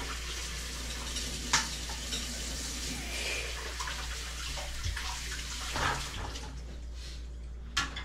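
Water running steadily from a tap, with a sharp knock about a second and a half in and another near the end; the running eases off near the end.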